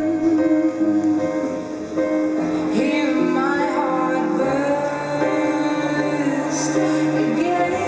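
Recorded music playing for a dance, a song with singing over guitar-like accompaniment and sustained notes.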